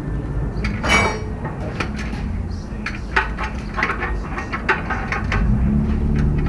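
Steel hand tools clinking and tapping against the rear suspension's metal parts in a string of sharp irregular clinks, with one ringing metallic strike about a second in, as a binding suspension bushing is worked at.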